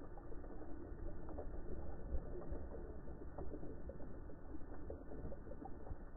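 Underwater ambience in shallow surf: a steady low rumble of moving water with many small scattered crackling clicks.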